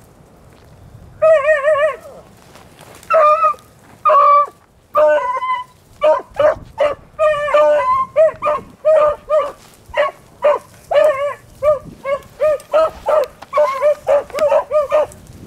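Beagle hounds baying: a long wavering bawl about a second in, a few spaced cries, then a fast string of short barks, two or three a second, that runs on to the end. The hounds are giving tongue as they work a rabbit's scent line.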